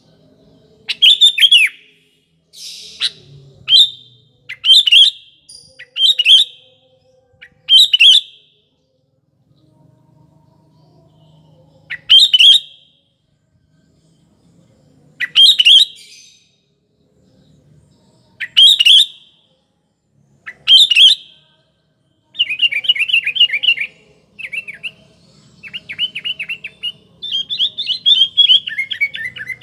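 Sooty-headed bulbul (kutilang) calling: short, loud, bubbling phrases every second or few seconds, then a quicker, chattering run of notes over the last several seconds.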